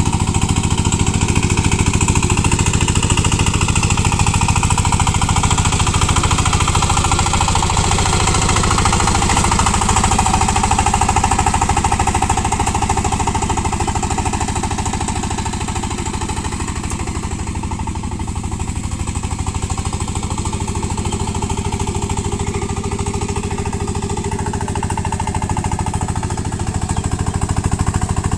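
VST power tiller's single-cylinder diesel engine running steadily with a rapid chugging beat while the tiller churns through paddy-field mud.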